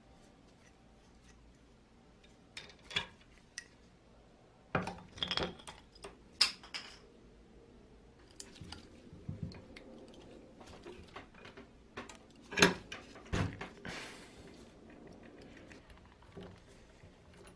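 Small brass fittings and metal parts clinking and tapping against a steel bench vise as they are handled and twisted loose: scattered sharp metallic clicks with quiet gaps between.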